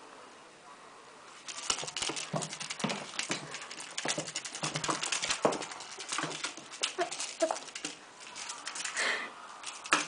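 Rapid clicking, tapping and scraping as a kitten bats a feather-and-fur toy around a tiled floor, her paws and the toy clattering on the tiles. It starts about a second and a half in.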